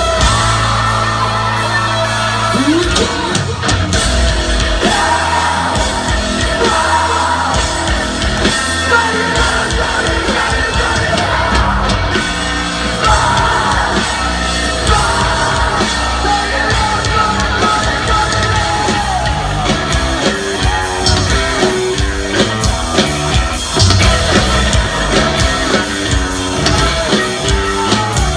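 Live rock band playing a song in a concert hall, with guitars, drums and sung and yelled vocals.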